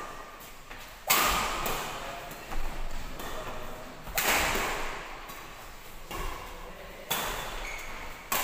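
Badminton rackets striking a shuttlecock in a rally: five sharp cracks, a second and a half to three seconds apart, each ringing on in the hall's echo.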